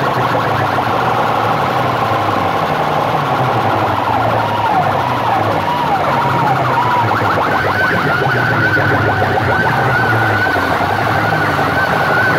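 Stacks of horn loudspeakers blasting loud music with a siren-like wail sweeping up and down over a pulsing bass beat; about eight seconds in the wail moves higher and wavers more evenly.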